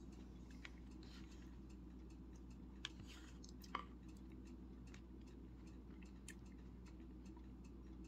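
Near silence: quiet eating, with faint scattered clicks and two sharper ticks about three and four seconds in, over a low steady room hum.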